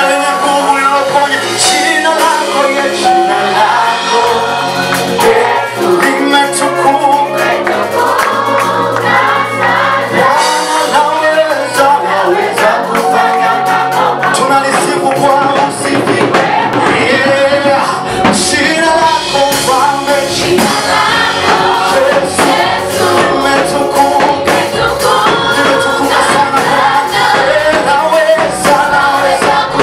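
Choir and congregation singing a Swahili gospel praise song over live band accompaniment with a steady percussion beat. A deeper bass line fills in past the middle.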